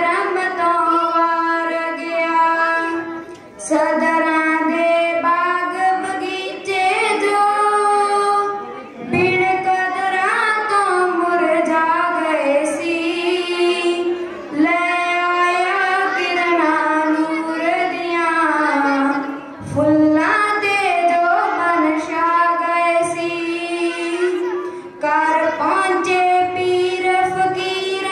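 A girl singing solo in Punjabi into a microphone, unaccompanied. She sings in long held phrases with short pauses for breath every few seconds.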